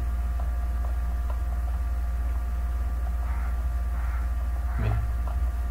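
Steady low electrical hum with a buzz: mains hum picked up in the recording.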